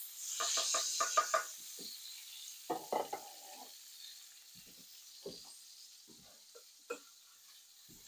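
Pancake batter sizzling in a frying pan while a utensil scrapes and clinks against the pan in quick clusters of strokes, the first about half a second in and another near three seconds, with a few lighter taps after.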